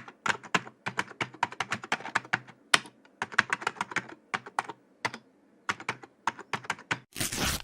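Rapid, irregular sharp clicks, several a second with brief pauses, like keys being typed on a computer keyboard, ending in a short burst of hiss that cuts off suddenly.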